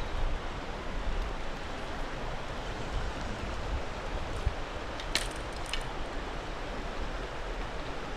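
Creek water running steadily, with a few short clicks about five seconds in.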